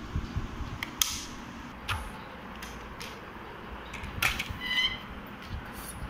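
Handling noise: a few sharp plastic clicks and knocks as an RC transmitter and a foam model plane's wiring and connectors are picked up and moved, over a steady background noise.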